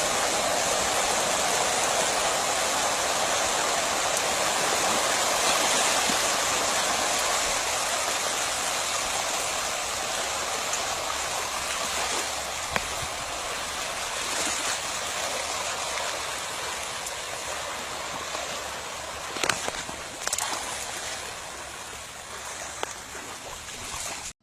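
Steady rushing, splashing water that slowly fades over the second half, with a few sharp clicks near the end.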